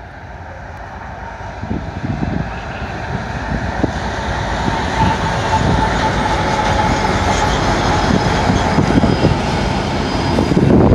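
A BNSF intermodal freight train passing close by behind four diesel-electric locomotives (an ES44DC, an ES44C4, an SD70MAC and a Dash-9). The engines' rumble and the wheels on the rail grow steadily louder, with many irregular knocks.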